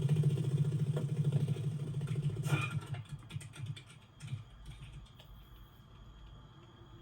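Loud, rapid low buzzing of grasshopper wings in flight, a motor-like whirr that fades away about three to four seconds in, leaving faint clicks.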